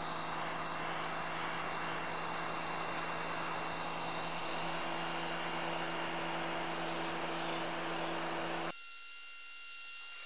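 Pressure washer running, its jet hissing steadily on concrete over a steady motor hum. Near the end the sound drops suddenly to a quieter spraying with different hum tones.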